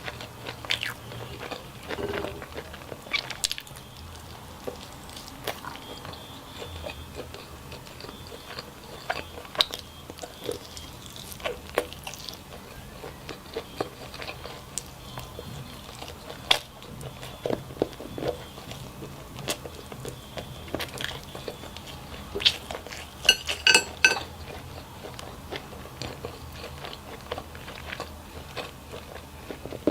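A person chewing and biting food, with irregular crunches and wet mouth clicks; a quick cluster of sharper crunches comes near the end.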